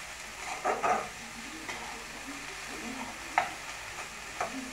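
Metal spatula scraping and clinking against a metal kadai as chopped drumstick flowers and potatoes are stirred, over a low steady sizzle of frying. There is a cluster of scrapes about a second in and a sharp clink about three and a half seconds in.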